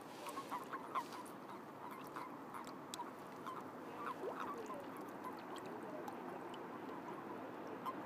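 Breeding chorus of common toads: many short calls overlapping around the pond, with a few faint clicks.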